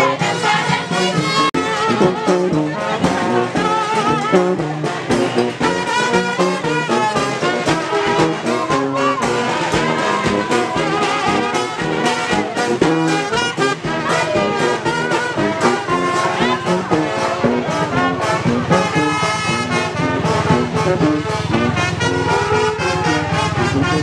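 Marching brass band playing, with trombones and a sousaphone carrying the tune over a steady beat.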